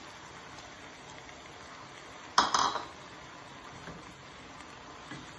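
Kitchenware clattering: two quick, ringing clinks about two and a half seconds in, over a faint steady hiss.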